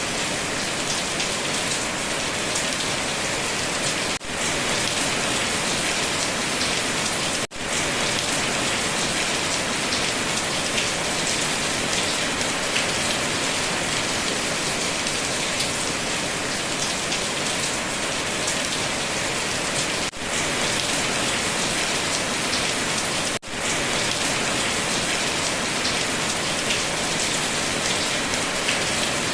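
Steady heavy rain falling, a dense even hiss of drops. The sound briefly cuts out four times, about 4, 7.5, 20 and 23.5 seconds in.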